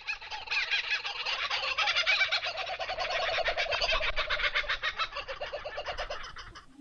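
Laughing kookaburra giving its laughing call: rapid repeated chuckling notes that build into a dense, loud laugh, then slow and thin out. It cuts off abruptly shortly before the end.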